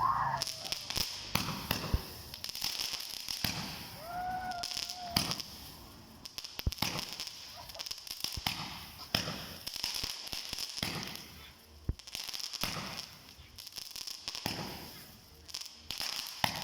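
Fireworks going off: a long run of sharp pops and bangs at irregular intervals over a steady hiss.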